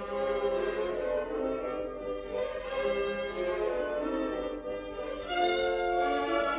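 Orchestral background music led by bowed strings, held chords that change every second or so and swell louder about five seconds in.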